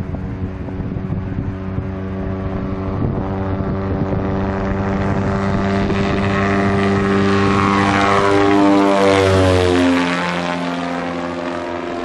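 LN-3 Seagull homebuilt amphibian's pusher engine and propeller at full power on the take-off run and climb-out, growing louder as the plane comes toward and over the listener. The pitch drops sharply as it passes, about nine to ten seconds in, then the sound eases off as it flies away.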